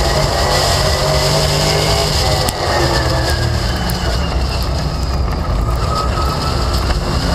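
Onboard sound of a Late Model stock car's V8 engine racing at high revs, then easing off about two and a half seconds in, with its pitch falling as the car goes into a turn.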